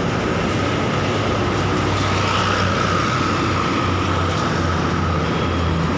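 Steady road noise of a heavy vehicle's engine running past, with a low hum throughout and no horn sounding.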